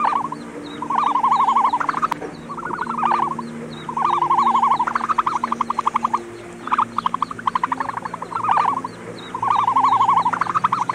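An animal's croaking calls, each a quick rattle of rapid pulses, repeated roughly once a second.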